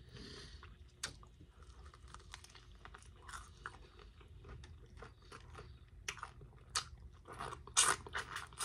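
Close-up chewing of chicken wings: a run of small wet crunches and mouth clicks, with the loudest crunches near the end as she bites into a fresh wing.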